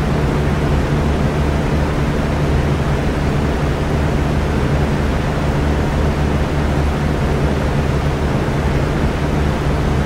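Electric fan running steadily: an even airy whoosh over a low, steady motor hum.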